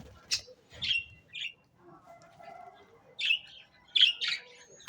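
Pet birds calling in short, sharp, high-pitched chirps: single calls about a third of a second in, near one second and around one and a half seconds, then louder clusters of calls after about three seconds and again around four seconds.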